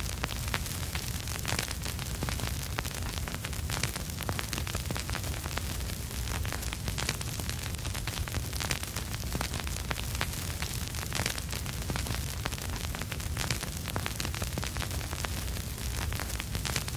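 Vinyl record surface noise with no music: a steady crackle of small pops and clicks over a hiss, with a low rumble underneath.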